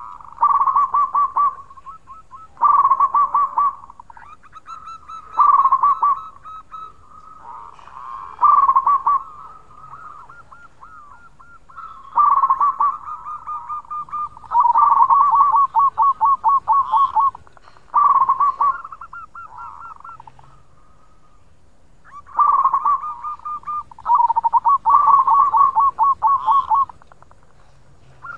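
Zebra dove (perkutut) cooing: about ten phrases, each a quick rolling run of notes lasting about a second, with pauses of one to three seconds between.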